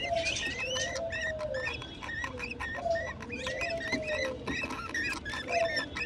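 Budgerigar chicks in a nest box making food-begging calls: a rapid stream of short, high chirps, several a second, over longer, lower calls that slide down in pitch.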